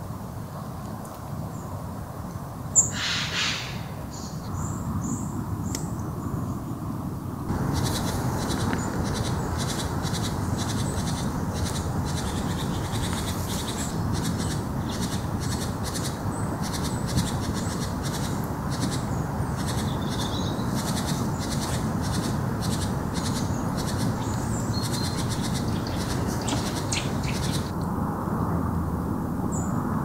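Woodland ambience: a steady low rush with birds calling and chirping. One sharp call comes about three seconds in, then a dense run of short high chirps starts about a quarter of the way through and stops abruptly near the end.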